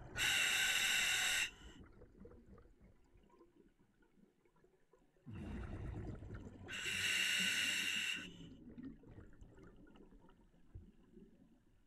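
Scuba diver breathing on a regulator in an OTS Guardian full-face mask: two loud hissing breaths about six and a half seconds apart, with a low rumble of exhaled bubbles starting shortly before the second.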